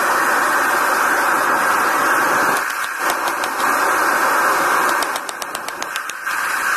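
Steady rushing noise of a running forge, with a run of sharp metallic taps about five seconds in as a red-hot half gear is hammered straight on an anvil.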